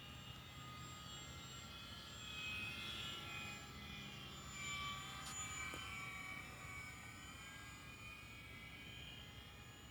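Radio-controlled model Cessna 182's motor and propeller whining faintly in flight, the pitch bending up and down as it flies around, swelling twice around the middle.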